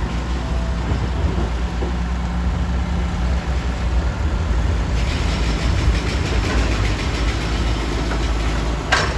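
Heavy diesel machinery at a stone-crushing plant running steadily with a deep rumble. A harsher rattling joins from about five seconds in, and sharp knocks come near the end.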